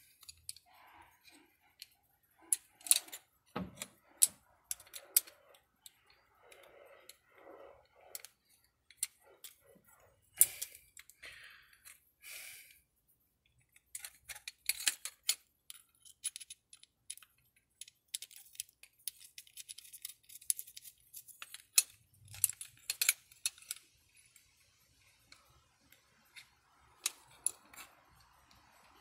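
Small metal parts and tools clinking and clicking as they are handled, with some rustling and an occasional dull thump.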